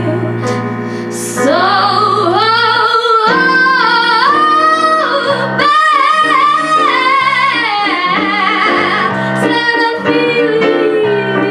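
A young woman singing a melody with held, wavering notes, accompanied by chords on a piano.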